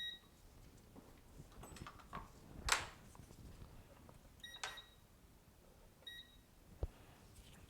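Short electronic beeps from a digital multimeter, three in all, with a few sharp clicks and taps of the probes and tools against the board while the VDD main line is being measured for a short.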